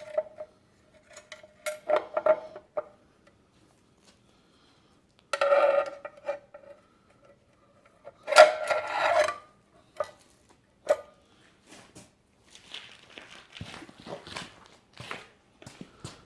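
Metal engine parts and tools clinking and rattling while the timing cover is fitted onto the engine: scattered sharp clicks, two louder metallic rattles lasting about a second each, with a short ringing note, and lighter clicking near the end.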